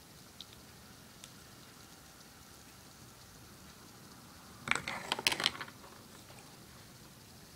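Plastic measuring spoons clattering against each other as they are handled: a quick, dense run of clicks and rattles lasting about a second, partway through.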